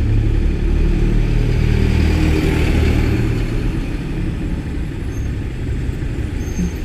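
Engine noise of street traffic, loudest over the first three seconds as a vehicle goes by, then settling to a steadier, lower rumble.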